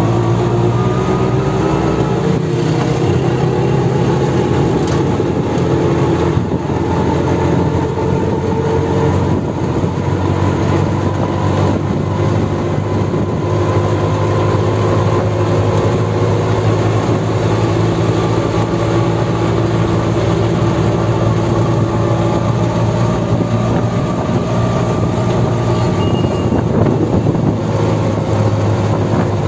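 Auto rickshaw's engine running loud and steady while under way, heard from the passenger seat with road noise; its pitch climbs over the first several seconds as the rickshaw picks up speed, then holds.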